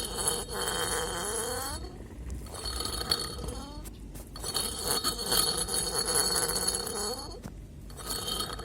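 Radiator cooling fan motor's dry, nearly seized shaft bearing squeaking as the shaft is turned, in several long squeals that slide up and down in pitch.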